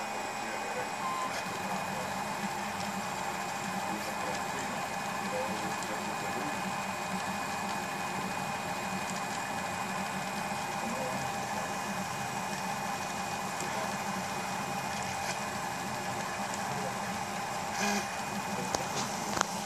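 Prusa Mendel i2 3D printer running, its stepper motors whining steadily as the print head lays down infill. Near the end come a short burst of noise and a sharp click.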